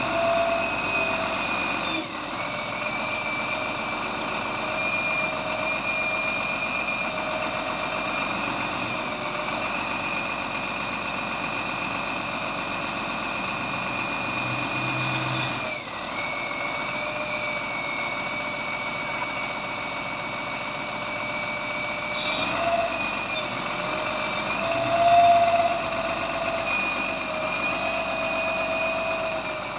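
A LiuGong CLG 835H wheel loader's diesel engine running steadily, with a steady high whine over it. The sound dips briefly twice and wavers near the end.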